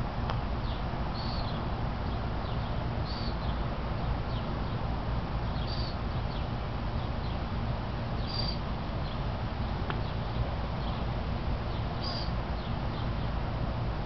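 A bird chirping: one short, high call every two to four seconds, five in all, over a steady noisy background with a low rumble.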